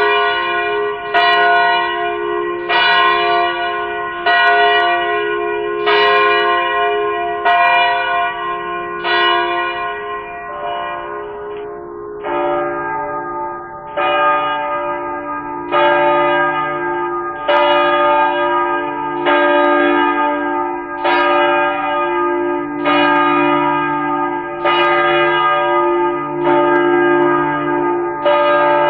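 Large church bell tolling, one stroke every second and a half or so, each stroke ringing on until the next. About twelve seconds in, a lower-pitched bell takes over at a slightly slower pace.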